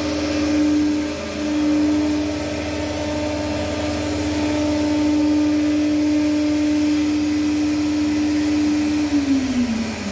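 Busellato Easy Jet 5.12-B CNC machining centre's router spindle milling a board, a steady high whine over a rush of dust extraction. Near the end the whine falls in pitch as the spindle winds down for a tool change.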